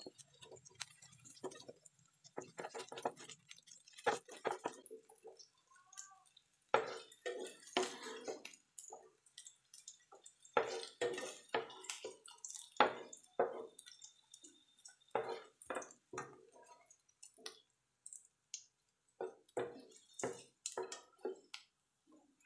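A wooden spatula and then a slotted turner scraping and knocking in a frying pan in short, irregular strokes, as fried potato sticks are turned and lifted out of the hot oil.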